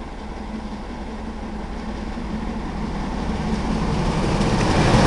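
Steam locomotive Clan Line, a Bulleid Merchant Navy class Pacific, approaching at speed with its train. Its rumble and rail noise grow steadily louder as it nears, loudest at the very end.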